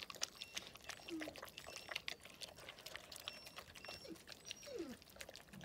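Gaddi dog puppies shifting about in dirt and dry straw: quiet crackling and scattered clicks, with a couple of brief falling whimpers near the end.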